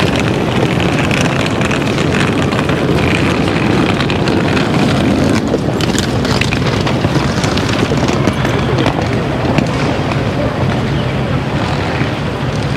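Busy city street ambience: steady traffic noise mixed with the murmur of passers-by.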